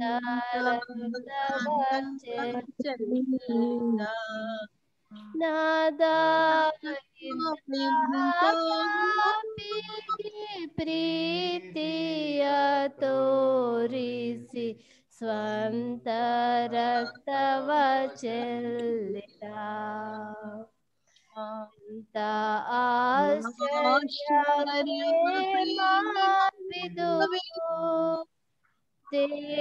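A Kannada hymn sung in a high voice, in phrases broken by short pauses.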